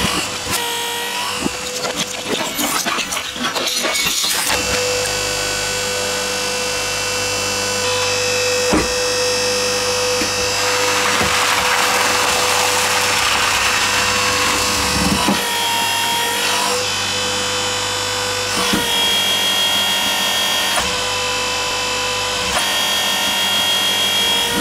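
Hydraulic press pump running with a steady whine as its ram crushes a head of cabbage, the leaves crunching and splitting for several seconds in the middle. The whine steps in pitch a few times near the end.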